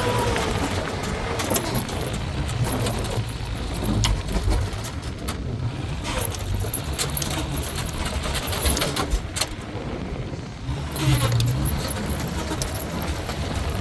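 A motor vehicle's engine running with a steady low rumble, with scattered clinks and knocks over it.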